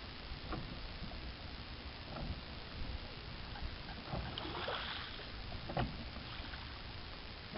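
Water splashing and lapping at a small wooden dinghy as its stern sculling oar sweeps through the water. There are a few light knocks, a brief louder splash about five seconds in, and low wind rumble on the microphone.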